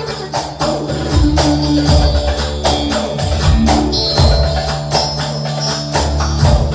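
Live köçek dance music: a Roland keyboard plays the melody with a tambourine shaken along to a steady beat.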